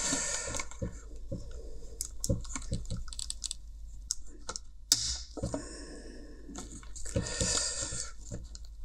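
Irregular plastic clicks and short scraping sounds as a plastic pry tool works a clipped-on plastic cover off a Bluetooth headphone ear cup.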